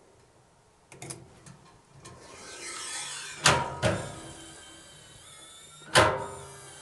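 Steel parcel box powering up its electronic lock and calibrating: a few light clicks, then a small motor whirring and sharp metallic clunks, the loudest about six seconds in, as the locking bolts drive out and back.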